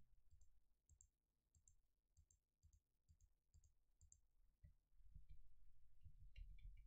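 Faint computer mouse clicks, a run of quick double ticks of button press and release, about two a second, over a low room rumble that rises in the second half.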